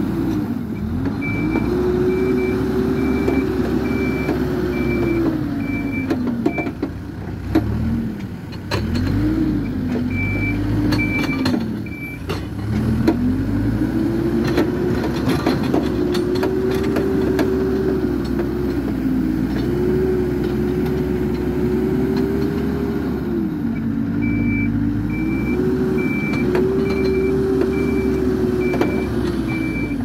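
Hidromek 102B Supra backhoe loader's diesel engine revving up and dropping back again and again under the load of pushing through mud. Its reversing alarm beeps in three spells: at the start, briefly around the middle, and near the end. A scatter of clanks and knocks comes through in the middle.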